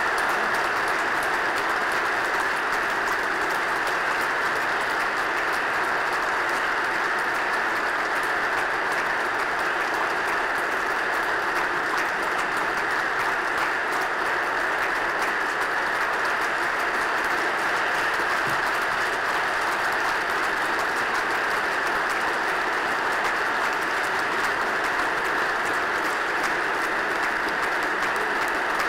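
Long, steady applause from a large audience of men clapping.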